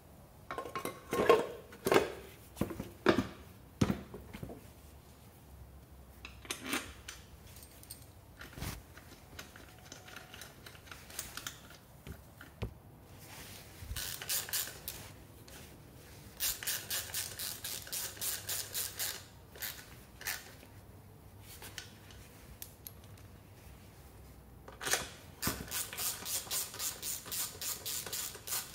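Metal parts knocking and clattering during the first few seconds as a scooter's transmission cover and air duct are fitted. Later comes a ratchet wrench clicking rapidly in several runs of a few seconds, tightening the cover bolts.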